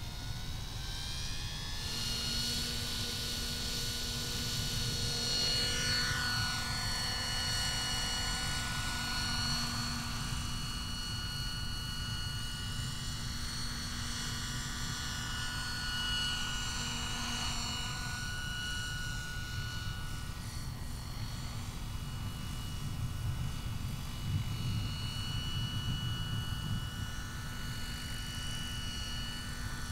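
Electric scale RC helicopter (Minicopter Heli-Baby, Plettenberg motor, 1.12 m two-blade rotor) running: a steady whine of motor and gears over the low beat of the rotor. The whine rises in pitch during the first couple of seconds as the rotor comes up to speed, then holds steady, with its pitch sliding down twice as the model flies past.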